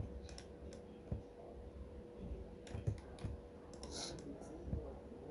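Scattered light clicks of a computer mouse and keyboard being worked, over a faint steady hum.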